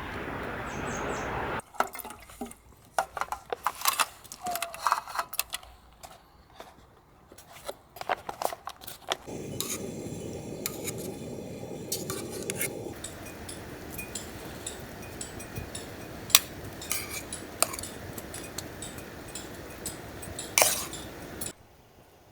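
Cooking utensils and dishes clinking: a run of quick metal-on-metal clicks and knocks against pots and bowls, then a steady hiss with scattered clinks over it that cuts off near the end.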